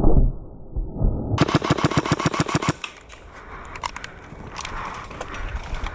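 A loud thump, then an airsoft gun firing a full-auto burst of about a dozen shots a second, lasting just over a second. Scattered fainter clicks follow.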